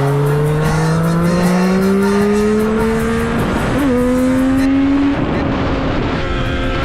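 Sport motorcycle engine under hard acceleration, its pitch climbing steadily for about three and a half seconds, dropping at an upshift, then holding roughly steady.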